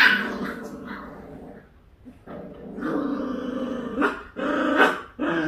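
Dogs growling during a scuffle, with a sharp cry right at the start and short sharp barks about four and five seconds in.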